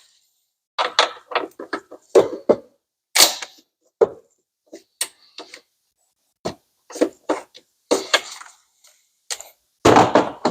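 Metal hand tools, a ratchet and sockets, being handled: irregular sharp clicks and clinks, some in quick little runs, with a louder clatter near the end.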